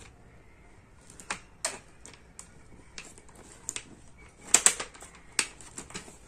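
Irregular sharp plastic clicks and taps from the visor pivot mechanism of a Steelbird SBH17 helmet, handled by fingers as the release button is turned to line up with its notch to unlock the visor. The loudest pair of clicks comes about four and a half seconds in.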